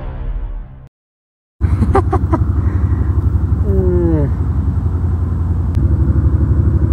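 A small engine running steadily with a low, rapid chugging, starting after the tail of a music clip and a brief silence. A short falling call comes over it about halfway through.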